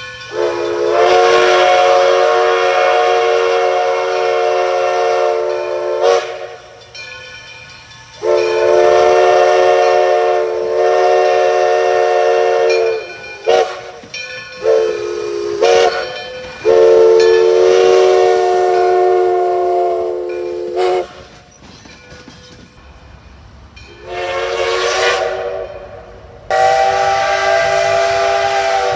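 Steam whistle sounding a chord of several tones, in a series of long blasts with a few shorter ones between them.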